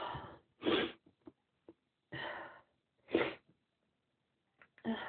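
A woman sniffing and taking sharp breaths through an itchy nose: about five short, breathy bursts every second or so, the first with a brief voiced catch.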